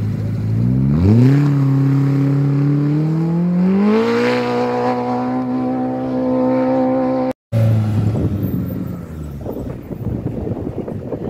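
Off-road race vehicle's engine revving hard as it accelerates away from the start. The pitch climbs in two steps and holds high, then after a brief dropout it falls away and fades into wind noise.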